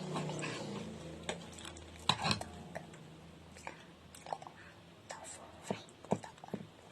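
People eating: quiet chewing with scattered small clicks and rustles.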